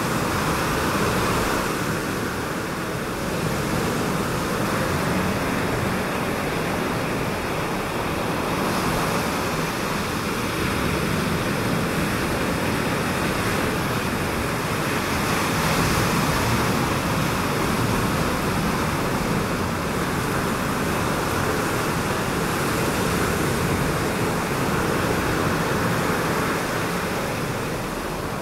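Ocean surf breaking on the reef: a steady wash of water that swells and eases several times.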